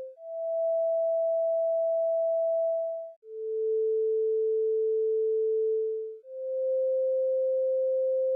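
A sequence of pure electronic tones, each held steadily for about three seconds and then replaced by another at a different pitch: a higher tone, then a lower one, then a middle one.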